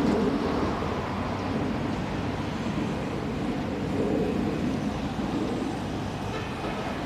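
Road traffic going past on a city street: a steady rumble and hiss of vehicles.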